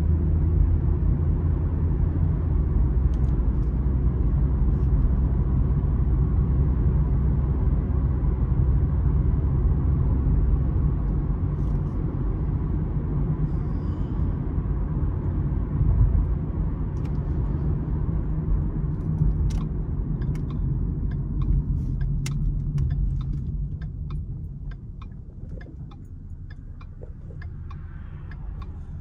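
2014 Ford Mustang with stock exhaust driving, heard from inside the cabin: a steady low engine and road rumble that drops in level over the last few seconds. A run of sharp ticks comes through over the final ten seconds.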